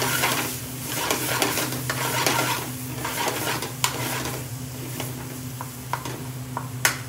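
A metal spoon stirring and scraping a thick, sizzling tomato-and-onion curry sauce around a metal frying pan over a gas flame, with a few sharp clinks of spoon on pan, clearest about four seconds in and near the end. The sauce is being stirred to keep it from sticking while it is still raw.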